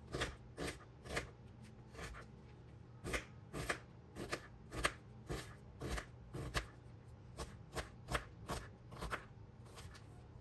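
Knife chopping on a cutting board: a run of sharp strokes at an uneven pace of about two a second, over a low steady hum.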